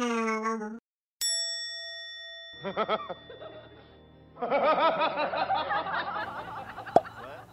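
Edited-in sound effects: a held tone that cuts off just under a second in, then a bright bell ding that rings away, followed by warbling, cartoon-like music from about halfway.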